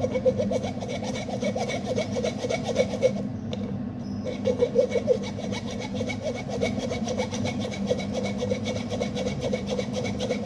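Metal spatula scraping and stirring fungal mycelium against the mesh of a plastic coffee strainer, a rapid rasping stroke after stroke, with a short pause about three and a half seconds in.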